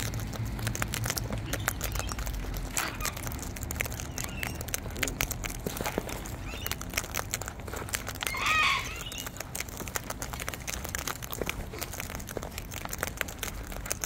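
Sulphur-crested cockatoos cracking and husking sunflower and other seeds in a bowl: a rapid, irregular run of small crunches and clicks. A short bird call stands out about eight and a half seconds in.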